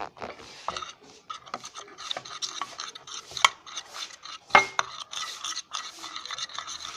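Spoon stirring and scraping thick slime around a container, with irregular scrapes, sticky rubbing and sharp clicks of the spoon against the pot, two louder knocks in the middle. The mix of clear glue and boric-acid water is setting and coming away from the container's sides.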